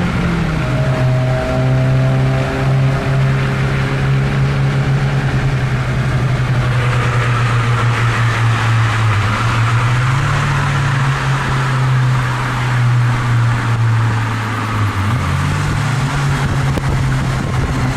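2003 Mazdaspeed Protegé's turbocharged four-cylinder running under way. Its note drops right at the start, then holds steady with small pitch steps around ten and fifteen seconds in. A rushing hiss builds from about seven seconds in.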